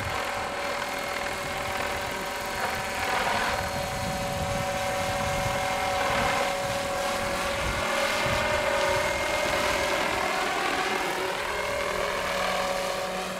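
Electric MD500 scale model helicopter flying with a heavy cross slung beneath it: a steady whine from the electric motor and rotors. Its tones bend in pitch near the end.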